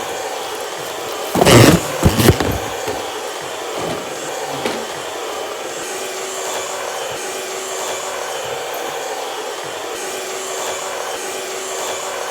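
Robot vacuum cleaner running with a steady whirr and faint hum. A couple of loud knocks or bumps come about one and a half to two seconds in.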